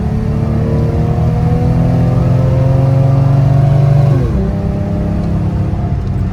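Toyota 2JZ-GE inline-six of a Lexus SC300 running, its revs climbing steadily for about four seconds, then falling back quickly and settling. This is a test of a newly replaced throttle position sensor: the engine drops back without hanging at high revs.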